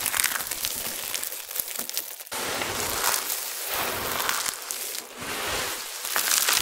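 Handfuls of dry crushed soap pieces coated in starch being scooped, squeezed and sifted through the fingers: dense, crisp crunching and rustling. A clean cut a little after two seconds in marks an edit, with a short dip before five seconds.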